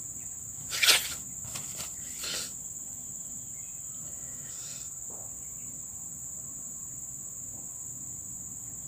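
Steady high-pitched buzz of insects in woodland, unbroken throughout. About a second in comes a short noisy burst, the loudest sound here, followed by a few fainter ones.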